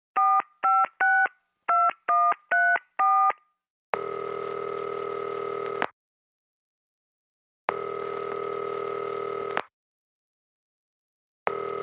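Telephone keypad tones as seven digits are dialled in quick succession, then the ringing tone on the line: two long rings about two seconds each, and a third beginning near the end.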